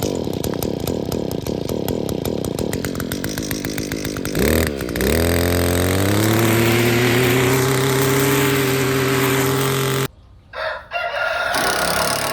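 A weed whacker (string trimmer) engine running fast, then revving up about four and a half seconds in and holding a steady high speed. It cuts off suddenly about ten seconds in.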